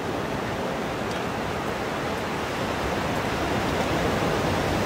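Steady rushing noise of sea surf breaking on the beach, swelling slightly louder near the end.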